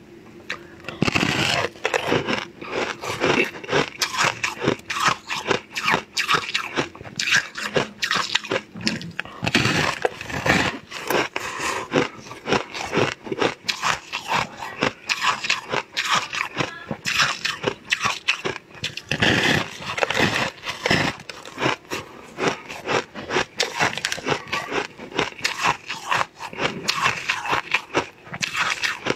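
Close-up eating sounds: a person biting off and chewing a crunchy purple star-shaped food, a dense run of crackling crunches with several louder bites.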